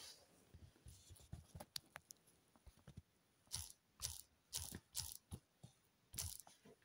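A few faint, short crunching noises, about five of them in the second half, with small clicks scattered between.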